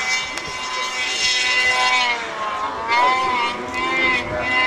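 Snowmobile engine running at high revs as a sled climbs a snowy slope, its pitch dipping and then rising again about three seconds in.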